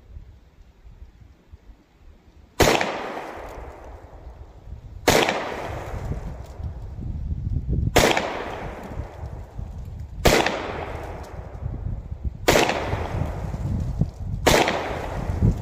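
Six shots from a Cimarron Frontier .45 Colt single-action revolver, fired slowly and one at a time, roughly two to three seconds apart, with the first about two and a half seconds in. Each shot is followed by a short fading echo.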